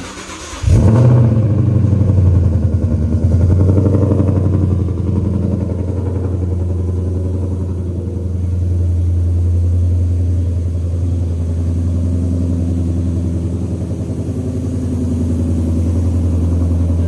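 Ford Coyote 5.0 L V8 of a 2013 Mustang GT started for the first time through newly installed Kooks headers, high-flow cats and an X-pipe: a short crank, then it catches with a loud flare under a second in and settles into a steady idle.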